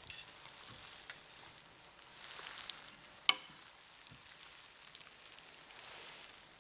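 Faint rustling and handling noises of cloth and objects being moved on a table, with one sharp, ringing click about halfway through.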